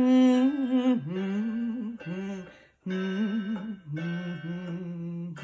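A woman humming a melody without words, in about five short phrases with brief breaks between them, her pitch wavering.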